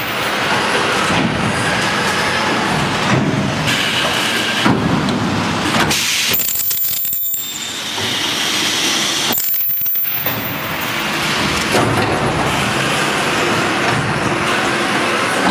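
Geocell welding machine running: a loud, continuous mechanical clatter with metallic clinking, with two brief lulls around seven and ten seconds in.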